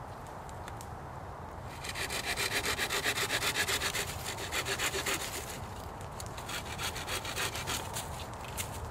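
Small curved-blade hand saw cutting through a wooden stick in quick back-and-forth strokes, about four a second, starting about two seconds in. After a short pause near the middle, softer strokes follow.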